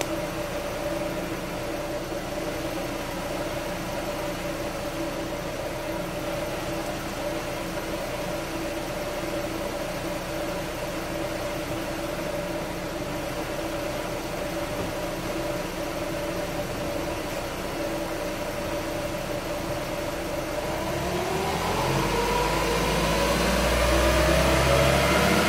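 Skoda 1.6 FSI (BLF) four-cylinder petrol car running steadily with a constant hum, then about 21 seconds in accelerating, its pitch rising and getting louder. The owner is trying to tell whether a strange noise from it is a wheel bearing or a faulty transmission.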